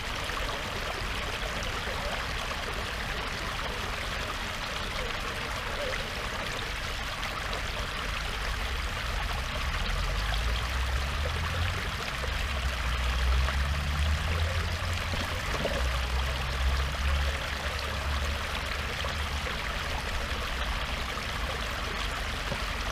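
Water pouring into a concrete-lined pond and churning at the surface: a steady rushing, splashing noise. A low rumble swells in and out through the middle.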